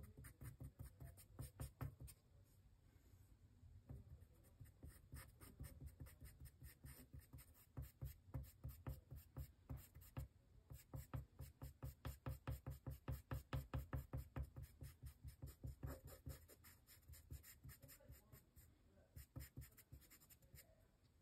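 Charcoal pencil scratching on drawing paper in quick, faint short strokes, about four or five a second, coming in runs with short pauses and busiest in the middle stretch.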